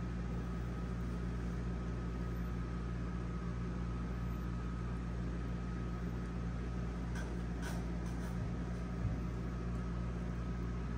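A steady low mechanical hum with a faint high whine over it, unchanging throughout; two faint clicks about seven and a half seconds in.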